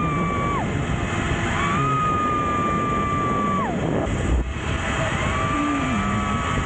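Wind rushing over the camera microphone during a fast zipline ride, with riders letting out long held yells, three of them, each dropping off sharply at the end.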